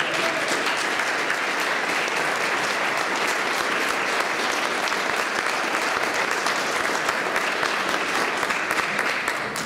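Audience applauding, many hands clapping at a steady level, dying away near the end.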